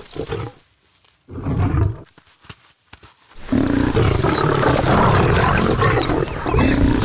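Lions snarling and roaring. A brief snarl comes about a second and a half in, between near-silent gaps, and from about halfway on there is continuous loud snarling and roaring.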